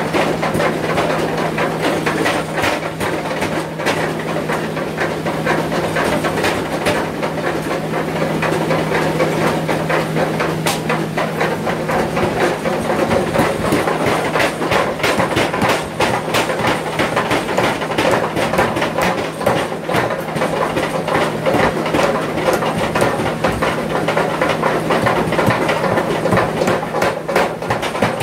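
Continuous forge-workshop machinery noise: a steady low machine hum under fast, repeated metallic clattering and knocking from a mechanical power hammer at work, the strikes densest near the end.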